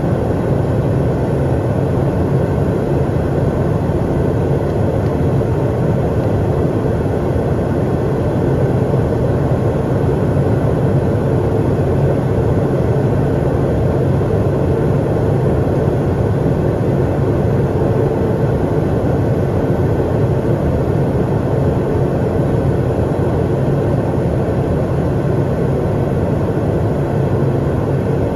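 Steady in-flight cockpit noise of an Eclipse 500 twin-turbofan very light jet: a constant rush of airflow and engine hum that holds one level throughout.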